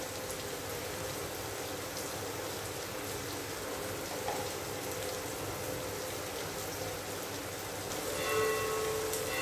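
Sliced onions frying in oil in a pan, a steady soft sizzle, with a faint steady hum underneath and a couple of light clicks.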